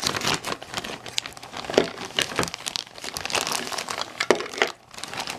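Clear plastic bag crinkling and crackling in irregular bursts as it is cut open with scissors and handled.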